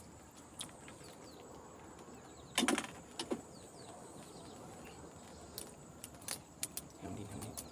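Scattered clicks and rattles of handling fishing gear and a freshly caught silver barb while landing and unhooking it, with the loudest burst about two and a half seconds in. A steady high insect drone runs underneath.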